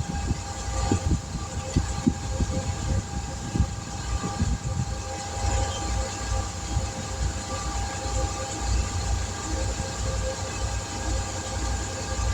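A machine running steadily: a low rumble with a steady hum over it, and a few knocks and thuds in the first five seconds.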